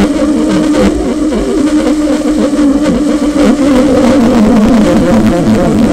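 Der Marebrechst, a homemade amplified noise instrument, putting out a loud, wavering buzzing drone with a rough, noisy edge, its pitch sagging a little near the end.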